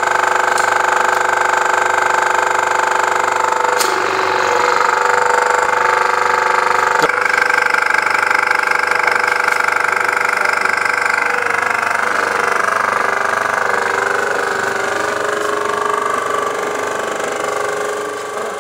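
Keiser KT17999 crack-injection pump running steadily under load, pushing oil through a packer into a concrete floor crack, its steady hum shifting in pitch a few times.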